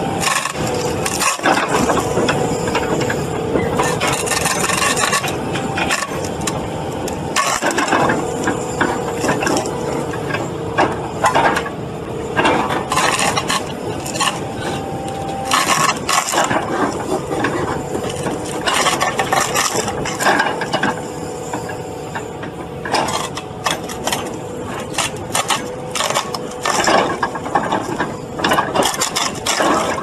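Excavator engine running steadily while a stump-splitter blade on its arm splits a tree stump, the wood cracking and splintering in repeated sharp cracks.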